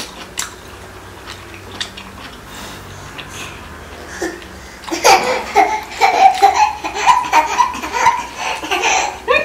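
Light clicks of chopsticks and dishes, then from about five seconds in, several seconds of high-pitched laughter, loud and in quick repeated bursts of voice.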